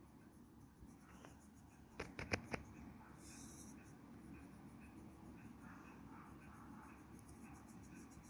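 Faint drawing sounds on paper: three light taps about two seconds in, then a brief scratchy stroke.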